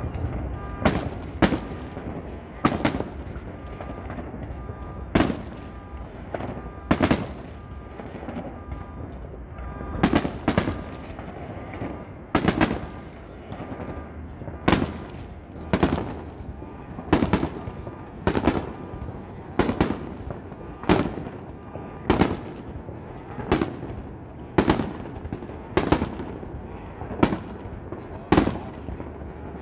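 Aerial fireworks shells bursting overhead: a string of about twenty sharp bangs, most a second or so apart.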